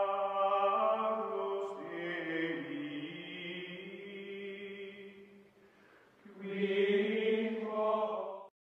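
Outro music of choral chanting: several voices holding long notes in chords. It fades out about two-thirds of the way through, comes back, and cuts off abruptly near the end.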